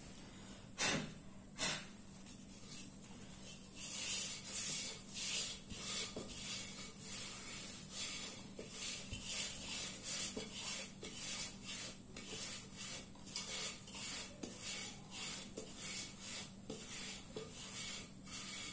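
Two sharp knocks about a second in, then a long run of quick, irregular scraping strokes, one or two a second, over a faint steady hum.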